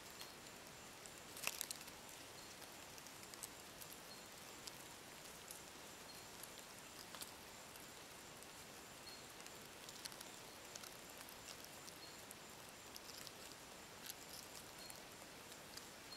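Near silence: faint rainforest-floor ambience, a steady hiss under a thin high tone and a short high note repeating about once a second. Scattered small ticks run through it, with a brief crackle about a second and a half in.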